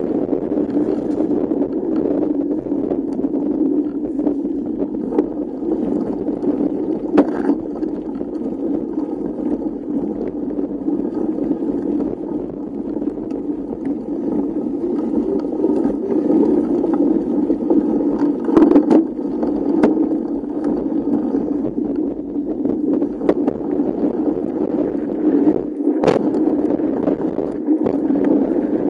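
Mountain bike rolling down a dirt forest trail, heard from a camera mounted on the bike: a steady rumble of tyres and wind, with a few sharp knocks and rattles as it goes over bumps.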